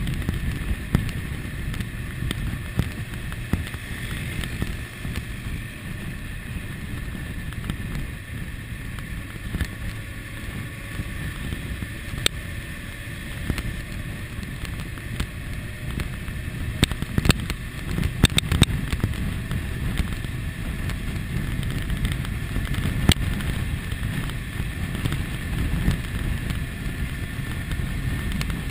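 Motorcycle riding noise: wind buffeting the camera microphone over the 2001 Kawasaki ZX-6R's inline-four engine running at cruise. A few short sharp clicks stand out, most of them around the middle.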